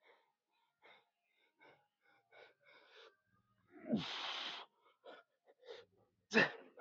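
A man breathing hard from exertion in short, quick breaths, with a long forceful exhale about four seconds in and a voiced, falling exhale near the end.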